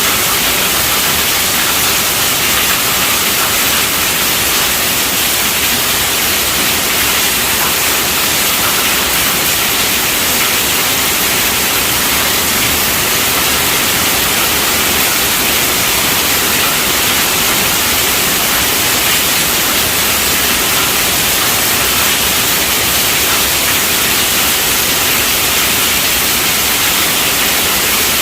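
Steady rainfall: an even, unbroken hiss with no distinct drops or thunder standing out.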